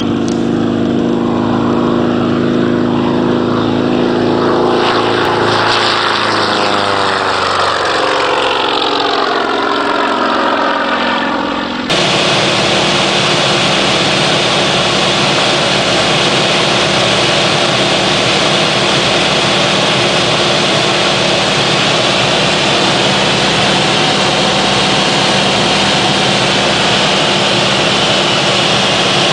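Yak-54's nine-cylinder radial engine and propeller running at full power as the plane passes close by, the pitch falling as it goes. About 12 seconds in, a cut to a steady engine drone heard from inside the cockpit in flight, with heavy wind and engine noise.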